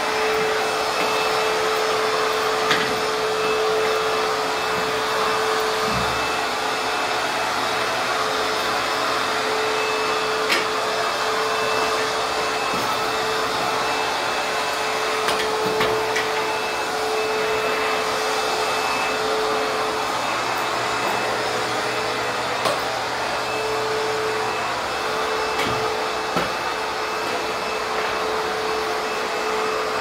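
Backpack vacuum cleaner running steadily on carpet, a constant motor whine over its airflow. A few light knocks are heard here and there.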